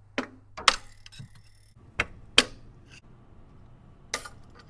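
Sharp metallic clicks and knocks, about five spread over a few seconds, of tools working a V-band exhaust clamp loose from the turbocharger outlet.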